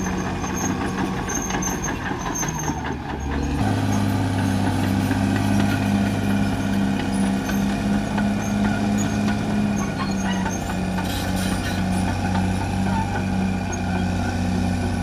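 Caterpillar D6R XL bulldozer's diesel engine running under load, its pitch stepping up about three and a half seconds in and then holding steady with a slow rhythmic pulse.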